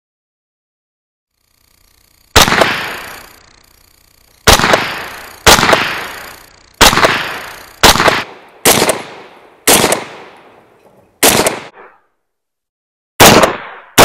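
Taurus CT9G2 9mm semi-automatic carbine firing single shots at an uneven pace, about a second apart: nine shots, with a tenth right at the end, as the 10-round magazine is emptied. Each shot trails off in echo.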